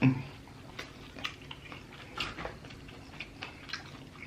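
Close-miked eating: irregular wet lip smacks and chewing clicks, a few a second, from a mouth working through sauce-covered seafood-boil food. A brief low voiced sound comes right at the start.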